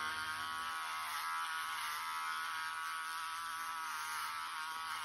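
Electric hair clippers running with a steady buzz, cutting hair close around the ear.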